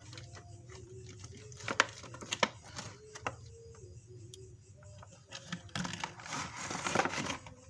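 Packaging of a mini RC helicopter being opened by hand: a few sharp clicks and snaps, then a longer rustle of plastic or cardboard near the end.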